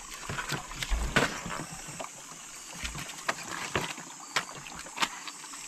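Hands splashing and shifting stones in shallow stream water while groping for shrimp, with irregular sharp knocks and splashes over the steady trickle of the stream.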